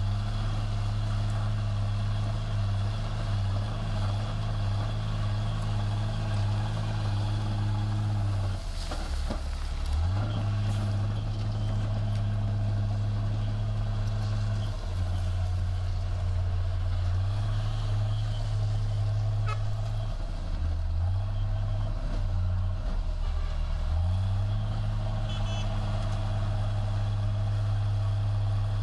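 Heavy diesel engine of a bulldozer running steadily with a deep drone, its note dropping and picking back up several times as the load changes.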